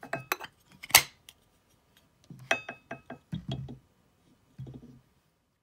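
Brass cartridge case and projectile of a 30mm round clinking and knocking against each other and the tabletop as they are handled and fitted together: a run of short clicks, the sharpest about a second in, a cluster midway, and a few soft knocks near the end.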